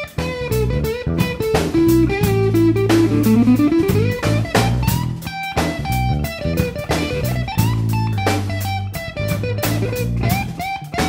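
Background music: a blues-rock track with guitar, bass and a drum kit keeping a steady beat; a guitar note slides upward about three to four seconds in.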